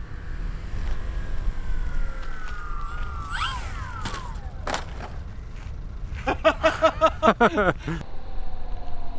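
An RC plane's motor whine slides down in pitch, then about three seconds in it jumps abruptly and sharp crash knocks follow as the plane strikes a roadside marker pole. Later comes a burst of rapid pitched pulses, about five a second, that drops in pitch before it stops; near the end a steady motor whine falls slowly.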